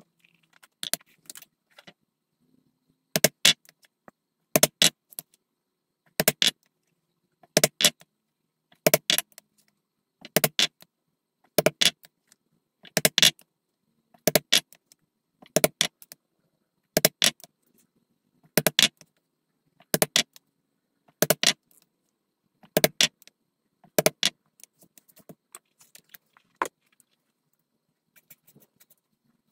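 Mallet striking a hand punch through leather on a poly cutting board, punching holes. The blows are sharp knocks in quick pairs, about one pair every second and a half, and they stop near the end.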